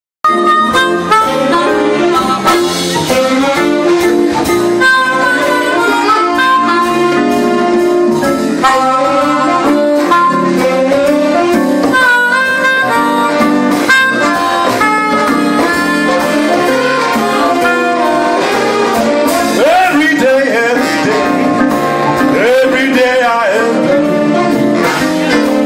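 A big band playing a blues instrumental, with saxophones and brass out front and notes bending in pitch about twenty seconds in.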